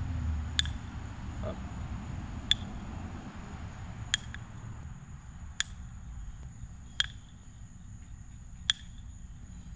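Cup-and-ball toy: the wooden ball knocks against the wooden cup with a sharp clack six times, about every second and a half, as catches are missed. A steady high insect buzz runs underneath.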